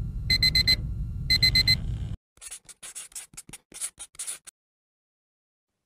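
Digital alarm clock beeping in quick sets of four, about one set a second, over a low rumble, stopping about two seconds in. Then a run of irregular keyboard-typing clicks until about four and a half seconds in.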